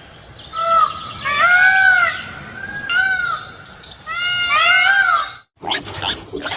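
An animal giving a series of about six short calls, each rising and then falling in pitch. Near the end the calls stop abruptly and a rough, noisy sound follows.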